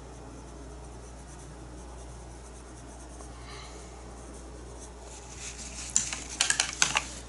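Painting tools being handled: a quick run of scratchy rubbing and sharp light clicks about five seconds in, lasting a couple of seconds, over a steady low hum.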